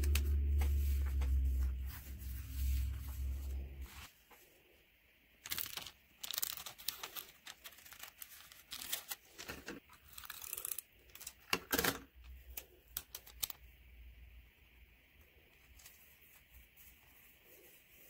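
Hands rubbing a postage stamp down onto a paper journal page, a low rubbing rumble for the first four seconds. Then paper rustling and the crackly rasp of an adhesive tape runner rolled across the page in short strokes, between about five and twelve seconds in, and faint paper handling after.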